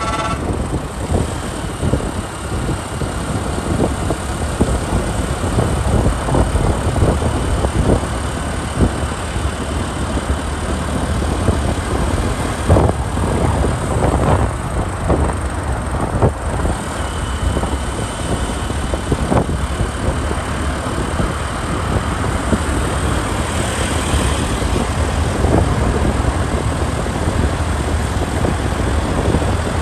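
Riding on a motorcycle through city traffic: engine and road noise with a heavy, uneven low rumble of wind on the microphone.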